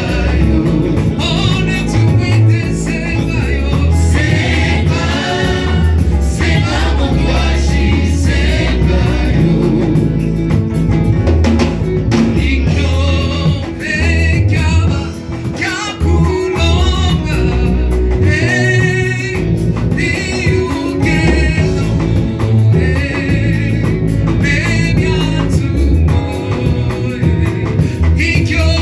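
Live gospel worship music: a hymn sung over a band with a heavy, steady bass line, with a brief dip in loudness about halfway through.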